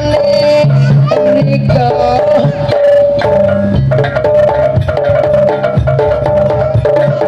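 Jaranan ensemble music: hand drums and percussion beating a steady rhythm under a held, stepping melody line.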